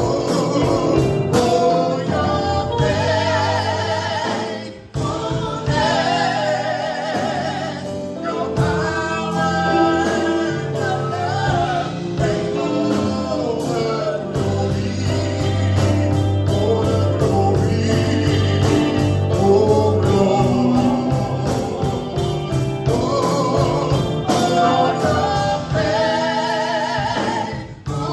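Live gospel praise band with a choir singing a worship song, over keyboard, bass and drums with a steady beat.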